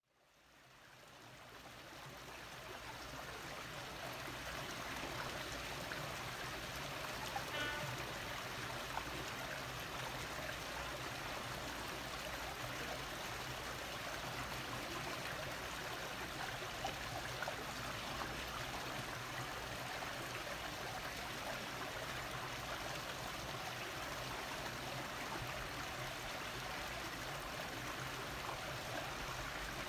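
Steady rushing noise of running water, fading in over the first few seconds and then holding even throughout.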